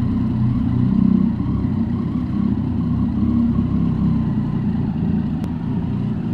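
Triumph Street Triple 675's inline three-cylinder engine running steadily at low revs while the motorcycle creeps along at walking pace. There is one brief click about five and a half seconds in.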